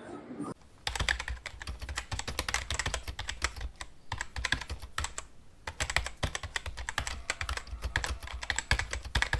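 Keyboard typing sound effect: a rapid run of key clicks, broken by two short pauses about four and five and a half seconds in.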